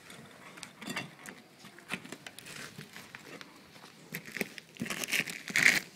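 Irregular scraping, rustling and light clicks from close-up hand work at a carved plaster frieze, growing louder near the end.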